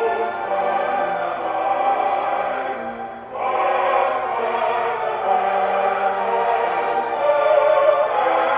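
Choral film music: a massed choir holding sustained chords with vibrato, dipping briefly about three seconds in and then swelling back.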